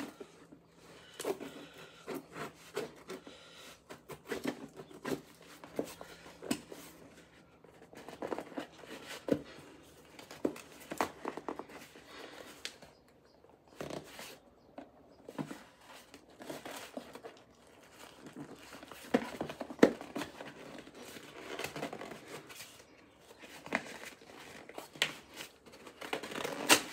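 Scissors snipping and scraping through packing tape on a cardboard shipping box, with irregular crinkling and tearing of the tape and cardboard as the box is worked open.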